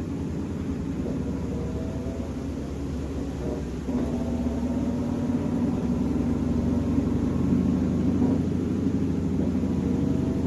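Hitachi top-loading washing machine running: a steady low hum that gets louder about four seconds in.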